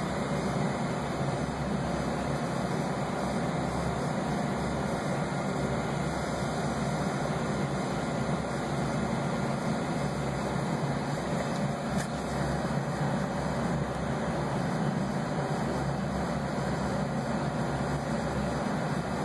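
Steady low background noise with no distinct events, apart from one faint tick about twelve seconds in.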